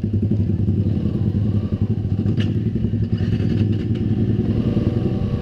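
Yamaha Xabre motorcycle's single-cylinder engine running steadily as the bike rides through deep, loose sand, with one sharp click about two and a half seconds in.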